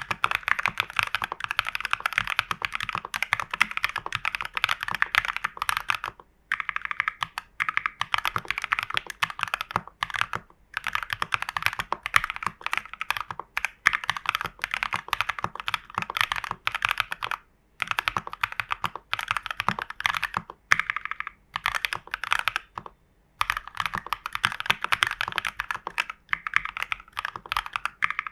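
Typing on a mechanical keyboard with KTT Strawberry switches in a foamed, tape-modded TU40 plastic case: a rapid, continuous patter of keystrokes in runs of several seconds, with brief pauses between them.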